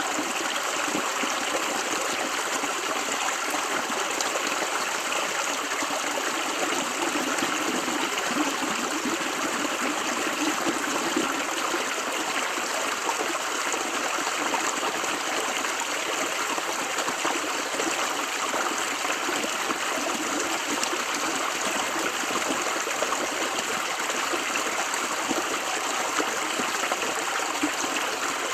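River water flowing steadily over rocks, a continuous rushing babble with no breaks.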